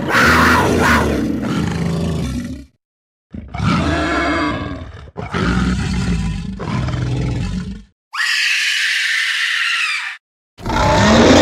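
A run of separate monster-creature roar and growl sound effects, one after another, each about two seconds long with short silent gaps between them. The fourth, about eight seconds in, is a higher, thinner shriek, and another roar starts near the end.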